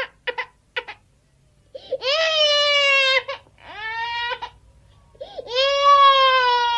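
A baby crying: a few short sobs, a brief pause, then long wailing cries that rise at their start and hold, separated by short breaths.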